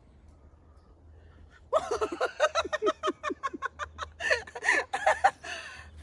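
A woman laughing, a quick run of short ha-ha bursts that starts a little under two seconds in and lasts about four seconds.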